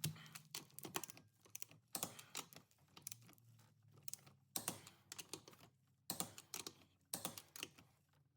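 Wrench ratchet clicking in several short bursts as wheel lug nuts are tightened to an 88 foot-pound torque spec.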